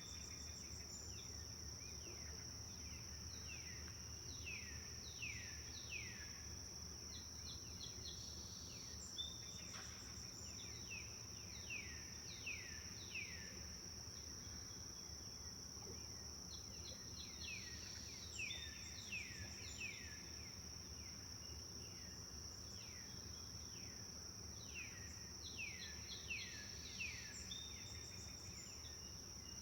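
A steady, high-pitched insect drone under repeated bird calls. The calls are short whistles that slide downward, coming in quick runs of several at a time and returning every few seconds.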